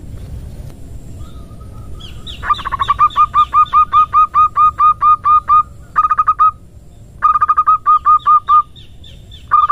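Zebra dove (perkutut) female call, the 'nutut ngerot' used to lure wild birds: quick runs of short cooing notes, about four to five a second, in a long run and three shorter ones. A low rumble comes before the first run.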